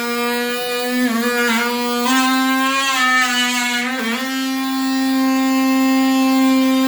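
DeWalt oscillating multi-tool running under load with a steady, high buzz. Its pitch dips briefly a few times as the blade bites into the material.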